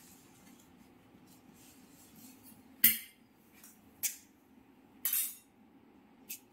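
Four sharp taps and clinks against a kitchen bowl, roughly a second apart: the first is the loudest and the third a little longer. A faint steady hum runs underneath.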